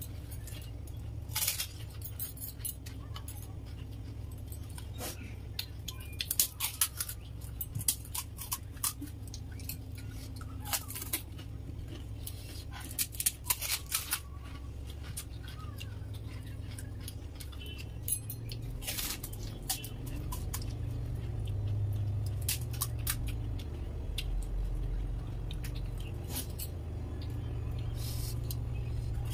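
Crisp fuchka (pani puri) shells cracking and crunching as they are poked open, filled from a bowl and bitten, heard as irregular sharp clicks and crackles, some in quick clusters. A low steady hum runs underneath.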